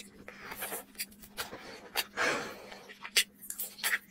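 Close-miked mouth sounds of eating a sauce-coated spicy chicken drumstick: scattered wet, sticky clicks and smacks, with a loud breathy rush of air about two seconds in.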